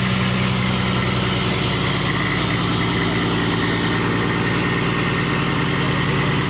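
Fishing boat's engine running steadily at a low, even idle, a constant hum with a fast fine throb.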